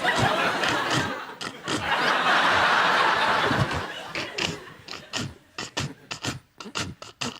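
Studio audience laughing while a performer makes fairground sound effects with his mouth into a microphone: a long rushing hiss about two seconds in, then a run of quick sharp clicks.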